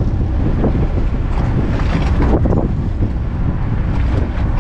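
Wind buffeting the microphone on the open deck of a fishing boat at sea, a steady low rumble with the boat's noise and the sea underneath.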